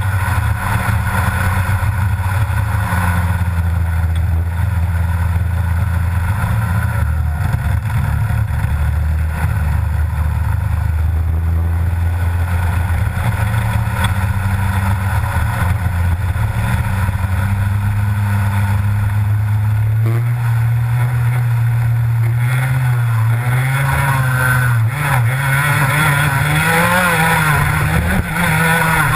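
Rotax Max 125 cc two-stroke single-cylinder kart engine, heard from on board the kart, holding steady high revs along a straight. About two-thirds of the way in the revs begin to fall and rise again and again as the kart brakes and accelerates through corners.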